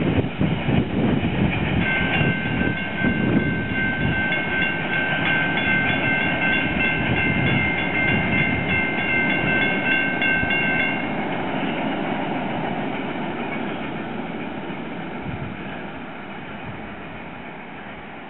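Freight train rolling away on the track, its wheel and rail noise fading steadily over the last several seconds. A steady high-pitched whine sounds over the rumble from about two seconds in until about eleven seconds in.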